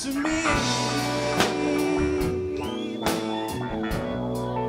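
Live rock band playing: electric guitars over keyboards, bass and drums.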